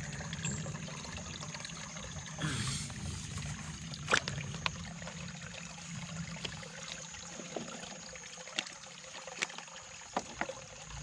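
Pond water trickling and sloshing as a plastic bottle trap is worked into the water by hand, with scattered small splashes and knocks, the sharpest about four seconds in.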